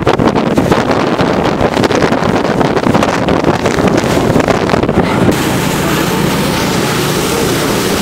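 Wind buffeting the microphone on the deck of a moving cruise boat, over the steady drone of the boat's engine and the rush of wind and water. About five seconds in, the buffeting suddenly drops away and leaves a smoother, steady engine hum and hiss.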